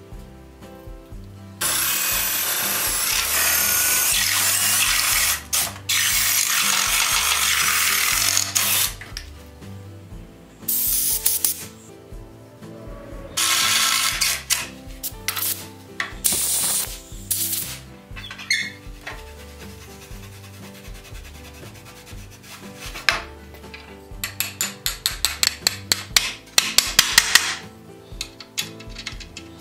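Cordless drill boring through wood with a spade bit: one long run of several seconds, then a few shorter bursts. Near the end, a quick series of sharp clicks, several a second.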